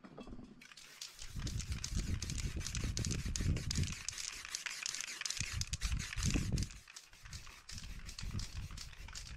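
Aerosol spray-paint can hissing as black paint is sprayed over a paper stencil, strongest from about a second in to about four seconds, then fainter. Rustling and crinkling of the paper and board being handled underneath.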